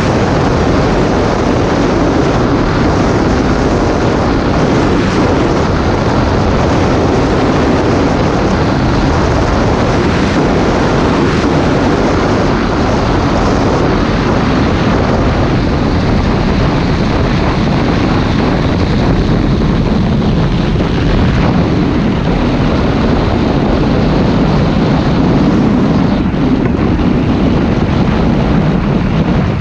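Flexwing weight-shift microlight's engine running steadily, mixed with heavy wind rushing over the microphone.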